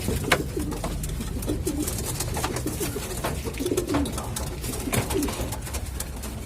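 Racing pigeons cooing in a loft: many short, overlapping coos throughout, with scattered sharp clicks.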